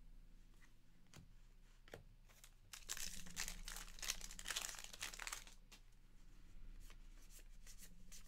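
A trading card pack's wrapper being torn open and crinkled, a burst of about two and a half seconds starting near three seconds in. Faint clicks of cards being handled come before and after it.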